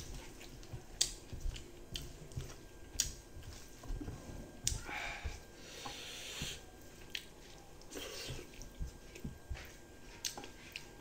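Eating rice by hand: fingers squishing and mixing rice on a plate, and mouth chewing with scattered sharp wet smacks and clicks.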